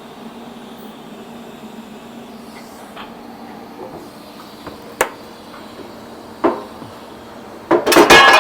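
A steady shop hum with a sharp click about five seconds in and a knock a moment later, then a loud clatter of metal parts and tools being handled near the end.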